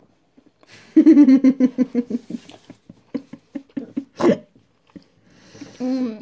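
A girl giggling in quick pulses for about a second and a half, then scattered small mouth clicks while chewing chocolate, one sharper click, and a short hummed vocal sound near the end.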